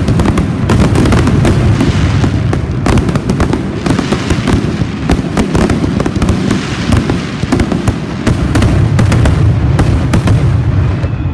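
Fireworks display going off in a dense, continuous barrage: many booms and crackling bangs overlap with no pause, over a heavy low rumble.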